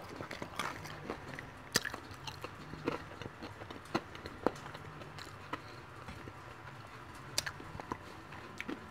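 A person chewing a bite of fried chicken wing: soft, irregular wet mouth clicks and smacks, a few of them sharper.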